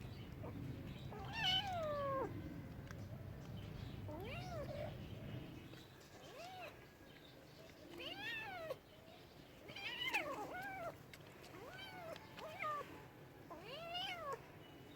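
Domestic cat meowing repeatedly: about nine separate meows, each rising and falling in pitch, the first one longer and sliding down. A low rumble sits under the first half and fades out about halfway.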